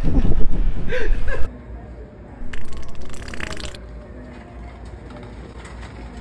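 Loud voices that cut off abruptly about a second and a half in, then a loud, wet, sputtering fake fart lasting about a second, made by blowing into a cup.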